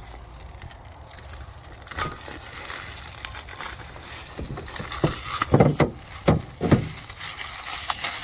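Knocks and clunks with rustling as sawmill parts and their packing are handled: one knock about two seconds in, then a cluster of louder knocks a few seconds later.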